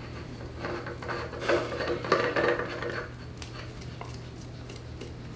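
Metal oil filter being turned by hand onto an engine's oil filter adapter: scraping, rubbing and light clinks of metal, busiest in the first three seconds, then a few small clicks, over a steady low hum.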